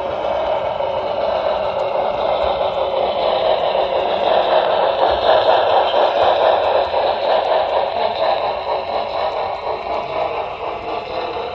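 Model train running on track, heard from a camera riding aboard it: a loud, steady mechanical whir of wheels and drive, growing louder in the middle and easing off near the end.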